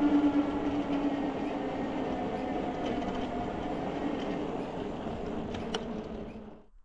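Electric bike riding along: rumble of tyres and wind with a steady motor hum that slowly drops in pitch, fading out near the end as the bike slows.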